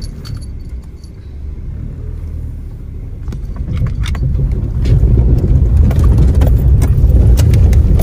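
Car interior: the engine and road noise rumble as the car drives up a sloping lane, growing much louder about halfway through, with light rattling clicks from inside the cabin.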